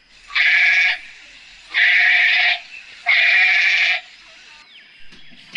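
Goat bleating three times, each a loud, harsh call of under a second with short pauses between.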